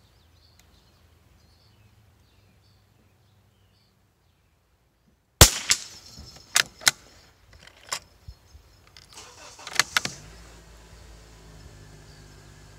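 A single .22 LR rifle shot from a Savage Mark II FVSR bolt-action rifle about five seconds in, followed by several sharp metallic clicks of the bolt being worked to eject the case and chamber the next round. A steady low hum sets in near the end.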